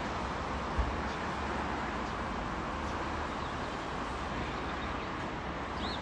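Steady outdoor background noise under a fluctuating low rumble, with one short low bump about a second in and a faint brief chirp near the end.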